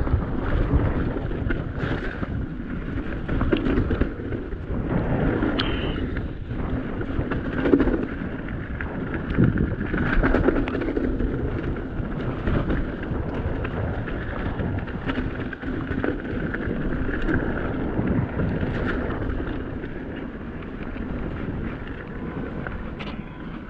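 Mountain bike riding a wet, rough trail, heard through a chest-mounted GoPro: wind buffets the microphone over the rumble of the tyres, with frequent knocks and rattles from the bike. A brief high squeal sounds about five seconds in.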